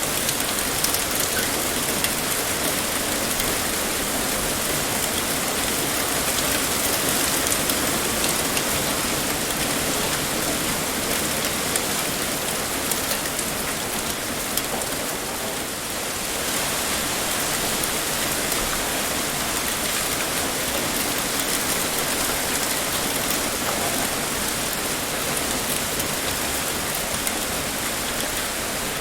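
Heavy rain pouring steadily, a dense even hiss with fine patter of drops on a surface.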